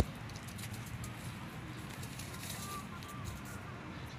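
Outdoor ambience of faint, scattered bird calls over a steady low rumble, with one sharp click right at the start.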